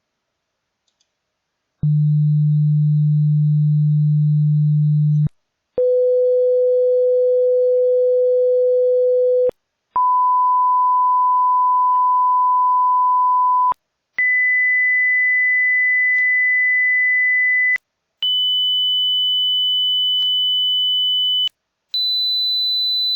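Hearing-test tones: six steady pure tones, each about three and a half seconds long with a short gap between, stepping up in pitch from a low hum to a high whistle. The first starts about two seconds in.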